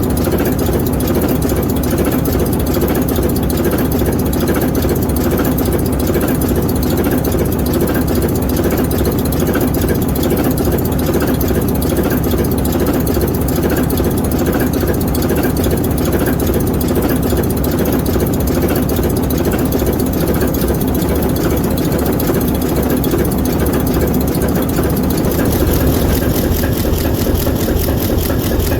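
ALCO 539T turbocharged six-cylinder diesel prime mover of an ALCO S4 locomotive, running steadily with a fast, even pulse of firing strokes.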